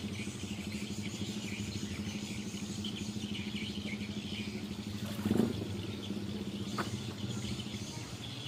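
A small engine running steadily at an even pitch, with high chirping above it and a brief knock about five seconds in.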